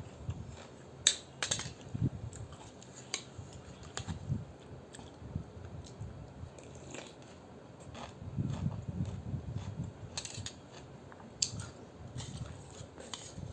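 Close-up eating of rice noodle soup: chewing, with sharp clicks of utensils against the bowl about a second in and again near the end.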